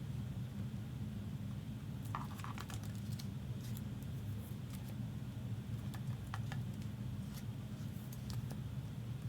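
Trading cards handled and flipped through by hand: scattered light clicks and slides of card on card, over a steady low hum.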